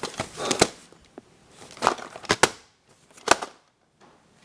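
Sharp plastic clicks and snaps with crackly handling noise, as of a VHS cassette and its case being handled and opened; a handful of separate clicks, the loudest two thirds of the way through.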